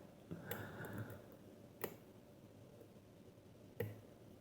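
A few faint clicks and light scraping from a lock pick working the pins of a five-pin Trelock challenge lock under tension, as pins are lifted and set.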